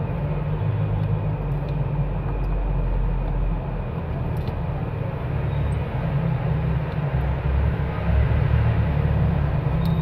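Steady low background rumble, with a couple of faint light clicks.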